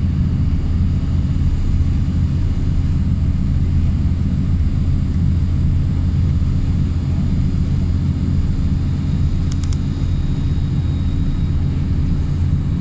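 Steady low rumble of road and engine noise from a vehicle travelling at motorway speed. A few faint high clicks come about three quarters of the way through.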